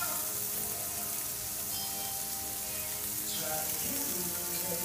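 Scotch fillet steaks sizzling on a barbecue grill, a steady hiss, under background music.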